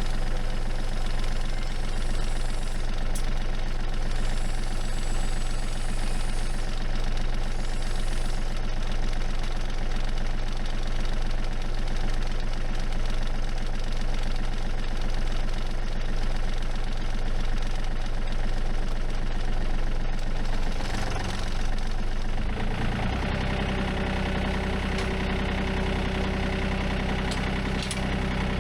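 New Holland Workmaster tractor's engine running steadily, with its note changing about 22 seconds in.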